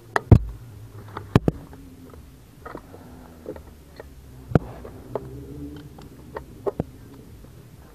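Sharp clicks and knocks of a racing harness being buckled and adjusted around the driver in a single-seater cockpit, heard from inside the helmet over a low steady hum.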